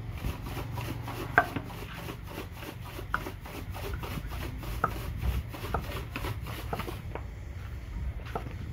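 Cleaver slicing through winter melon and knocking down onto a round wooden chopping block: a series of irregular sharp knocks, about one or two a second, with softer scraping of the blade between them, over a steady low rumble.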